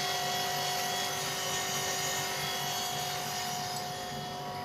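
Split air conditioner's outdoor unit running: a steady hum from the compressor and condenser fan, with a few constant tones over an even whir. The unit is on test after its burnt compressor terminal wires were replaced.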